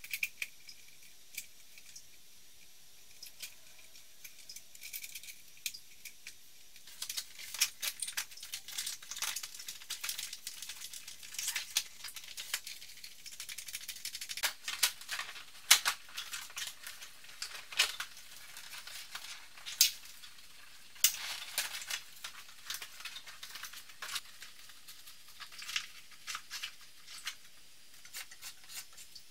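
Handling noise from a softbox studio light being assembled: the softbox's nylon fabric rustling and its plastic and metal fittings clicking and rattling as they go onto the light head and stand. There are only scattered clicks at first, then about seven seconds in near-continuous rustling with many sharp clicks.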